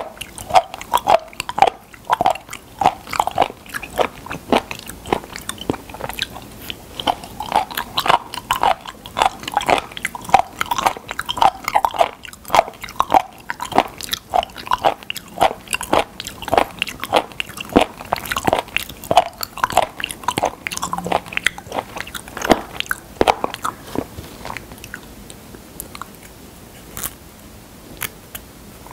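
Close-miked chewing of raw spoon worm (gaebul) sashimi: steady crunchy bites about twice a second, fading out about 24 seconds in. A few light clicks of wooden chopsticks follow near the end.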